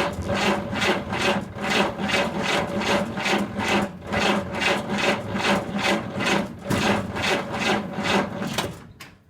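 1947 GMC pickup's straight-six engine being cranked by its starter motor, turning over at about three even strokes a second without catching, then the starter stops suddenly near the end. The engine is not firing because there is no spark at the plugs, which the owner puts down to worn distributor points.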